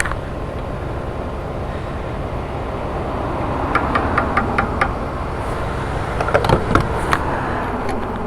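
Steady low vehicle hum with a quick run of about seven light clicks about four seconds in, then a few sharper knocks near seven seconds, at a petrol pump.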